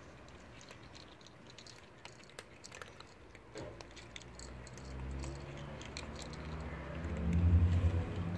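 Cats crunching dry kibble from bowls: many small, crisp crunches. In the second half a low rumble close to the microphone builds up and is loudest near the end.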